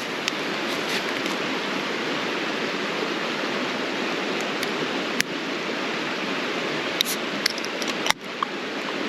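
Creek water rushing steadily, with a few short sharp clicks over it.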